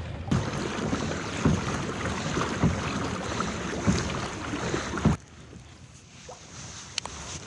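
Wind buffeting the microphone over water and hull noise from a kayak under way, with irregular low thumps. It cuts off abruptly about five seconds in, leaving quieter water sounds and a single click near the end.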